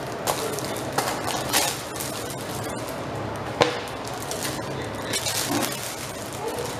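Handling noise from a clear plastic bag crinkling, with several sharp taps and knocks on a table top as a mounted canvas is set down; the loudest knock comes about three and a half seconds in.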